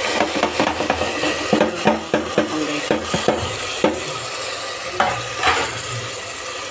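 A steel ladle stirring chopped tomatoes into fried onions in a pressure-cooker pot, clinking and scraping against the metal over a steady sizzle. The clinks come thick and irregular for about four seconds, then thin out.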